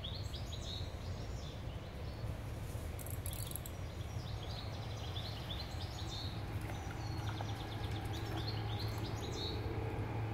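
Small songbirds singing in the bankside trees: quick, repeated high chirping phrases throughout, over a steady low rumble of outdoor background noise.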